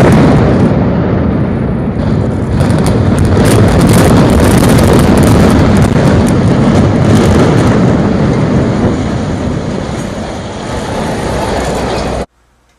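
A loud, steady rumbling roar with no speech in it, which cuts off suddenly near the end.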